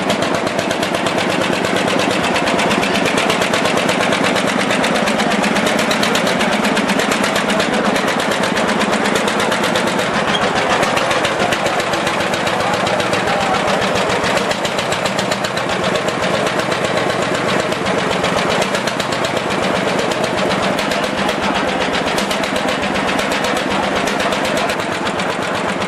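Old tractor engine running with a fast, even knocking beat of firing strokes that holds steady throughout.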